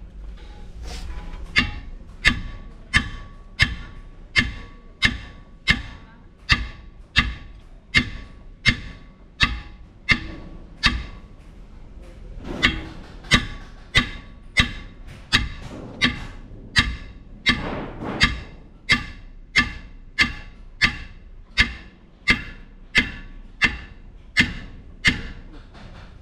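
Steady series of hammer blows on metal truck wheel parts, about three every two seconds, with faint music underneath.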